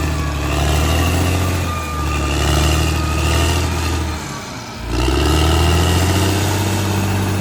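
Caterpillar D6R XL bulldozer's diesel engine running steadily. It drops off briefly about four seconds in and then picks back up, with a faint high whine over it.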